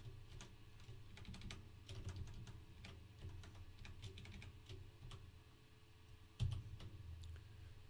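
Computer keyboard typing: irregular quick keystrokes, with one louder thump about six and a half seconds in.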